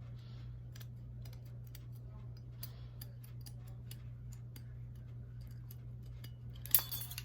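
Thin metal diamond-plate sheet being cut slowly by hand, a run of small irregular clicks and snips, with a louder clatter of clicks near the end. A steady low hum sits underneath.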